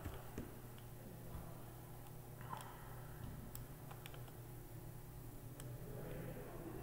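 Faint, scattered single computer mouse clicks, a handful of them as anchor points are placed along a curve, over a low steady hum.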